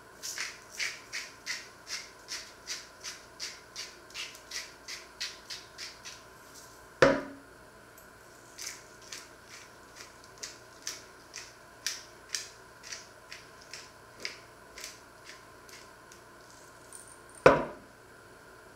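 Hand pepper mill being twisted to grind pepper, a crunching click about three times a second in two long runs. Two loud knocks break in, about seven seconds in and near the end.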